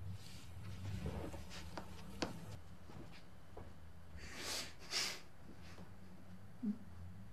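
A distressed man breathing hard, with two sharp breaths about halfway through, over soft rustling and small clicks of movement against a faint low room hum.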